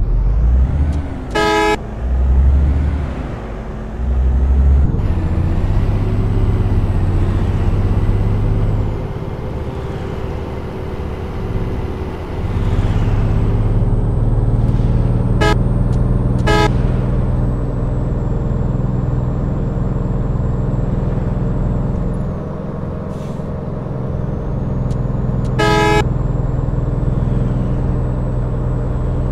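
A road vehicle's engine running steadily on the move, with four short horn honks: one near the start, two in quick succession about halfway through, and one near the end.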